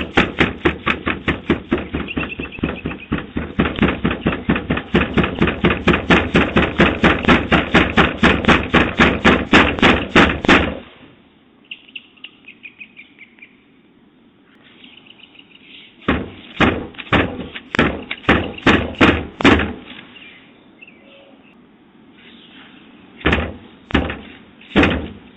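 Rapid, continuous pounding on a front door for about ten seconds, heard through a doorbell camera's microphone. After a pause of a few seconds come two more bursts of knocking.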